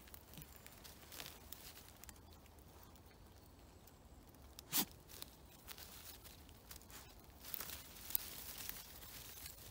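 A West Highland White Terrier rustling and crunching through wet fallen leaves and undergrowth as it noses about. There is one sharp snap about five seconds in, and a denser patch of rustling near the end.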